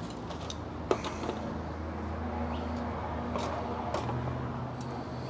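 Metal tongs clicking against a charcoal grill's steel cooking grate a few times as smoked bologna chubs are lifted off, the sharpest click about a second in, over a steady low hum.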